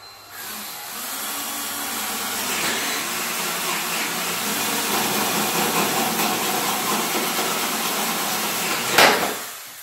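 Power drill with a paddle bit running steadily under load as it bores a hole, its motor pitch holding for about nine seconds, with a sharp knock near the end as the drill stops.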